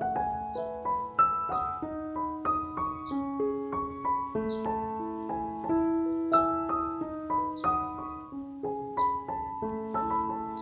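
Background piano music: a quick melody of short notes over held lower notes, several notes a second.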